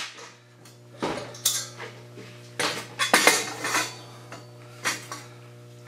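Welded steel tube frame clanking against a steel welding table as it is handled and lifted: a series of separate sharp metal knocks and clinks with a short ring, over a steady low hum.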